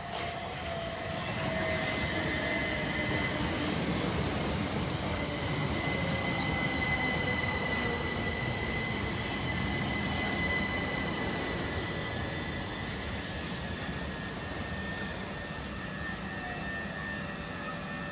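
Southern Class 377 Electrostar electric multiple unit running past along the platform: a steady rumble of wheels on rail that builds over the first couple of seconds. Over it sit a thin high whine and a lower whine that slowly falls in pitch.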